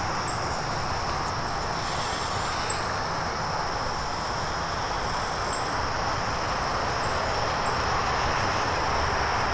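Redcat RC rock crawler's electric motor and drivetrain whirring steadily as it crawls over rock, with a thin steady high tone on top.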